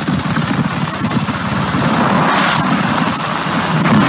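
UH-60 Black Hawk-type helicopter flying low and close over a speeding boat: a rapid, steady rotor chop under a loud rush of wind and spray.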